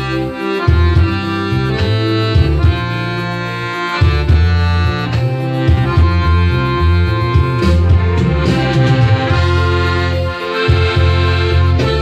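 Hohner piano accordion playing a tune: held treble melody notes over low bass notes that change every second or so.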